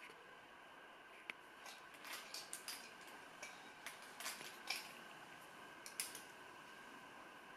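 Faint, scattered light clicks and scrapes over a quiet steady hiss, clustered in the middle with one sharper click near the end.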